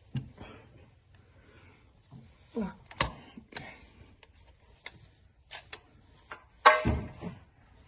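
Scattered sharp clicks and knocks of handling, loudest one about three seconds in and a ringing one near seven seconds.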